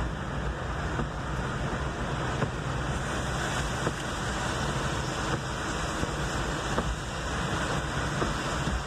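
Car driving through rain on a flooded road, heard from inside the cabin: a steady hiss of tyres on wet pavement and spray, with the low rumble of the car underneath. A faint knock comes about every second and a half.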